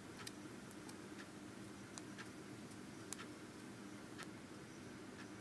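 Faint room tone: a low steady hum with a few faint clicks at uneven intervals.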